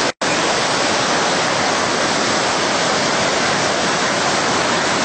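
Loud, steady rush of a muddy floodwater torrent surging and churning along a flooded street. The sound drops out for a split second just after the start.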